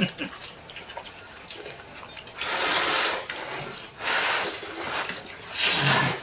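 Person slurping thick ramen noodles: three long, loud slurps in the second half, each lasting under a second.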